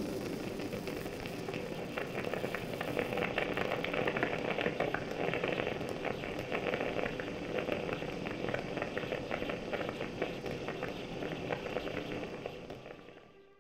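Stovetop moka pot brewing: coffee bubbling up through the central spout into the upper chamber, a dense crackle of small pops and gurgles that fades out near the end.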